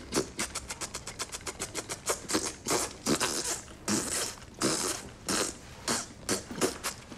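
A man making a rapid, irregular run of clicks and pops with his lips and tongue, in the manner of beatboxing.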